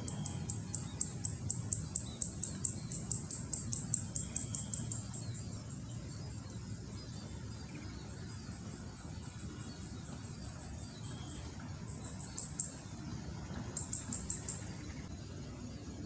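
Bird calling in rapid trains of high, clicky chirps, about five a second, for the first five seconds and twice more near the end, with a few faint short whistled notes, over a steady low rumble.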